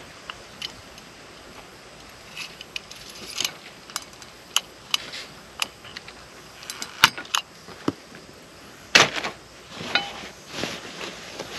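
A string of irregular sharp clinks and clicks, hard objects knocking together, with the loudest knocks about seven and nine seconds in.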